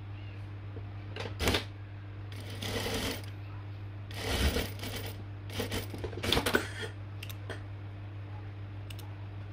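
Sewing work: four short bursts of clicking and rustling in the first seven seconds, then a few faint ticks, over a steady low hum.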